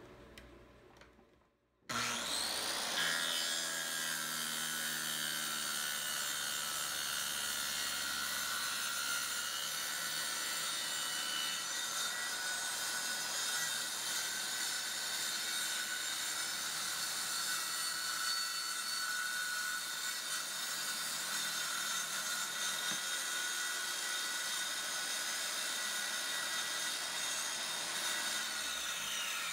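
Handheld circular saw cutting a sink opening in a countertop. After about two seconds of near silence the motor starts with a rising whine, then runs steadily through the cut and slows near the end.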